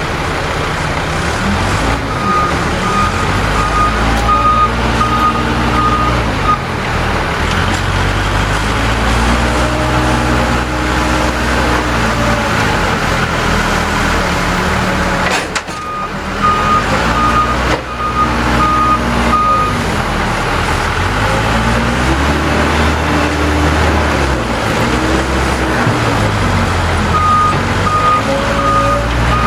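Case 580L backhoe loader's diesel engine revving up and down over and over under hydraulic load while loading a dump truck. A reverse alarm beeps in three spells, near the start, about halfway and near the end.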